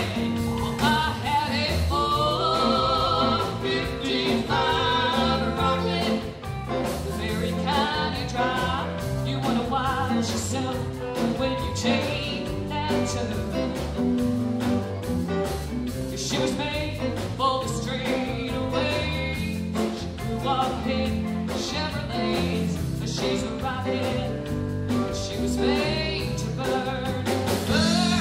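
Live band playing a song: a woman singing into a microphone over electric guitars, bass and drums keeping a steady beat.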